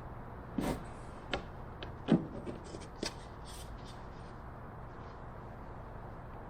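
Several sharp clicks and knocks of tools and small parts being handled on a workbench in the first three seconds, the loudest about two seconds in, then only a faint steady low hum.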